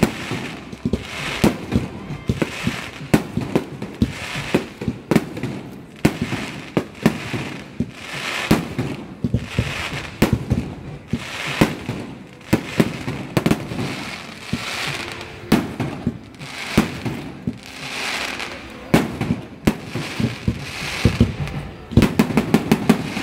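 Aerial fireworks display: repeated bangs of shells bursting, with crackling between them, and a quick run of reports near the end.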